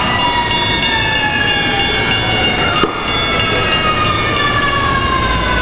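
G scale model train running past, its steady rumble carrying several high whining tones that slide slowly down in pitch. There is one sharp click about three seconds in.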